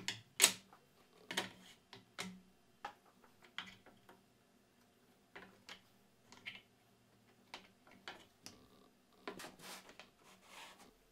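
Irregular sharp clicks and light knocks from handling small one-handed bar clamps and a steel framing square on a plywood board, with a brief scraping of hands sliding over the board near the end.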